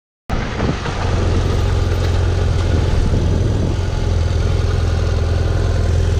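BMW F800GS parallel-twin engine running steadily at low speed on a dirt track, heard on board the motorcycle. It cuts in abruptly just after the start.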